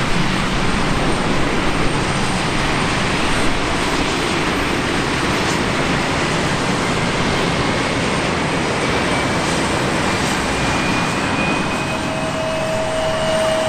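Bombardier Dash 8-402 (Q400) with its two Pratt & Whitney Canada PW150A turboprops running loud and steady as the airliner slows on its landing rollout. Near the end a steady whine sets in, with a fainter higher tone rising above it.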